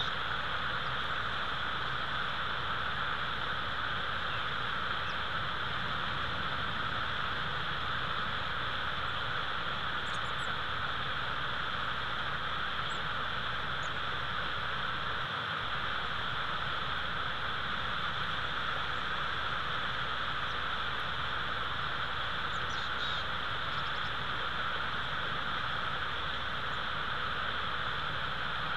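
Steady outdoor hiss from a nest-cam microphone, with a few faint, short high chirps about ten seconds in and again a little past twenty seconds.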